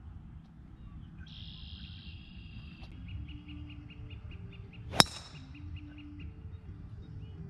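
A golf club striking a ball once: a single sharp crack with a brief ring about five seconds in. Birds chirp repeatedly behind it.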